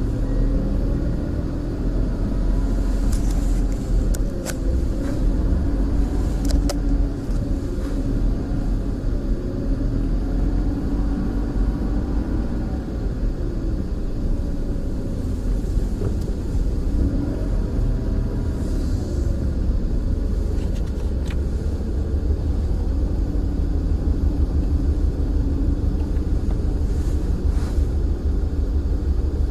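Car running with a steady low rumble, with a few sharp clicks about a few seconds in.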